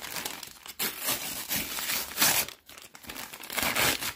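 A kraft-paper padded mailer being torn open along its seam and crinkled in the hands: bursts of paper tearing and rustling, loudest a little past halfway, with a short pause before three seconds in.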